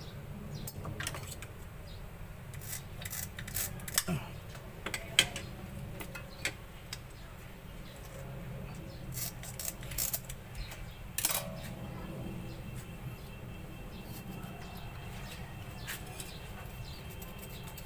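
Scattered clicks and knocks of hands handling and cleaning a whole yellowfin tuna on a cutting board, the loudest about 4, 5, 10 and 11 seconds in, over a steady low hum.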